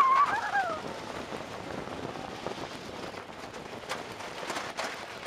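Wooden roller coaster train running along its track, a steady rushing rattle of wheels and wind. Riders let out a brief high scream right at the start, the loudest moment.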